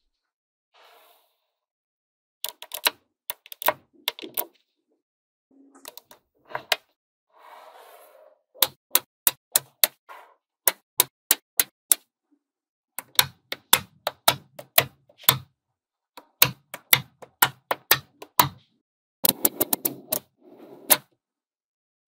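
Small magnetic balls clicking sharply as they snap together one after another, in irregular runs of several clicks a second, with brief rattling where a cluster of balls shifts against itself.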